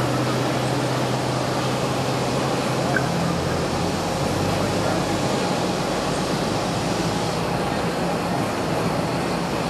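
Steady muffled rumble and hiss of airport apron noise heard through terminal glass, with low hums that change pitch about three and a half seconds in.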